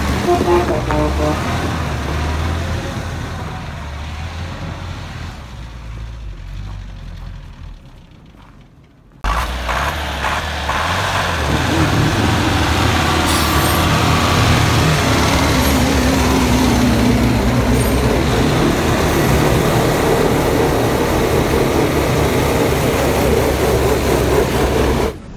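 GAZ-66 truck engine running under load as the truck drives through snow, fading over the first several seconds. After a sudden cut the engine is held at high revs while a wheel spins in place in a smoky burnout, with a dense hiss of spinning tyre over the engine.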